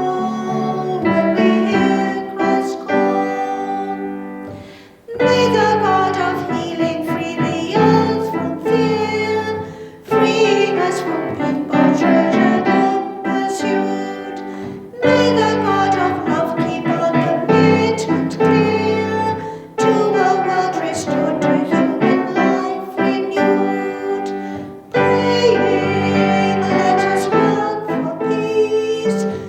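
Piano music played in phrases of about five seconds, each phrase ending with a short dip before the next begins.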